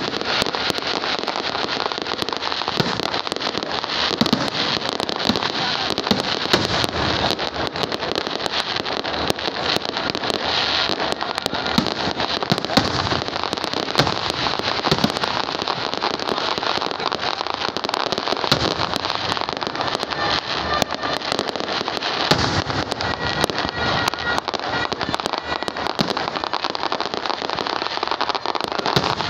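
Aerial fireworks going off without a break: a dense run of sharp bangs and crackling, with many pops close together and no pause.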